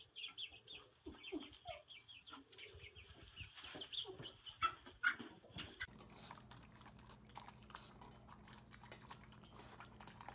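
Young chicken peeping, a quick run of short high chirps with a few lower clucking notes. After about six seconds these give way to a steady low hum with scattered light taps and clicks.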